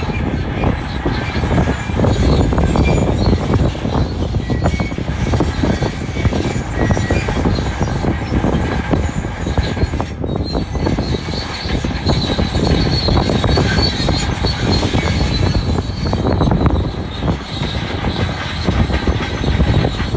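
Bulldozer working: its diesel engine running under load while the steel crawler tracks clank and squeal continuously. The high squeal grows stronger after a brief break about halfway through.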